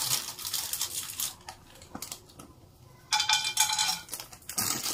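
Plastic packet of raw peanuts crinkling as it is handled, then, about three seconds in, peanuts tipped into a non-stick wok with oil, clattering against the pan.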